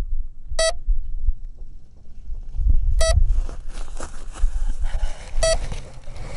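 Three short electronic beeps, about two and a half seconds apart, from a beeper on a landed Easyglider 4 RC foam sailplane, over a low wind rumble on the microphone. From about three seconds in, grass rustles and the airframe is handled as a hand picks the glider up.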